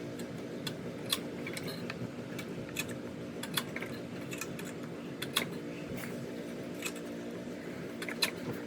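Scattered light metallic clicks and clinks of small parts and hand tools being handled, over a steady low hum.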